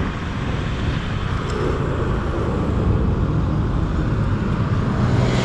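Motorcycle riding along a road, its engine running steadily under wind and road noise.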